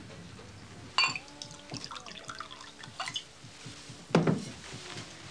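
A glass clinks, then whisky is poured from a bottle into a glass with faint glugging tones, and a louder knock follows about four seconds in.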